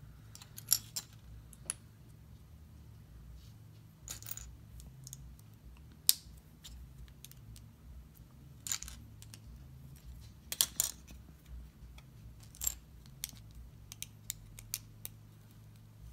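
Plastic LEGO bricks clicking and clattering as they are picked up, handled and pressed together: scattered, irregular sharp clicks with a few short rustles.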